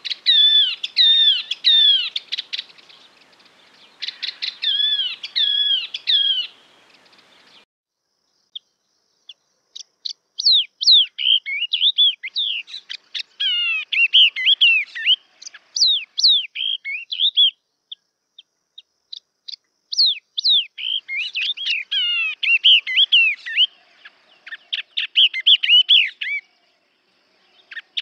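Yellow-eyed babbler singing: repeated phrases of quick, falling whistled notes, each phrase lasting one to several seconds, with short pauses between them.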